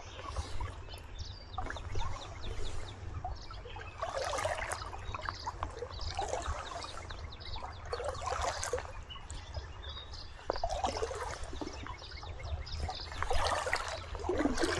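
Shallow river water trickling and splashing, coming and going in uneven surges over a low steady rumble.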